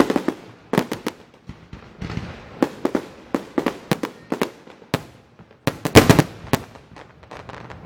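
Fireworks display: a rapid, irregular series of sharp bangs and cracks, with the loudest cluster about six seconds in.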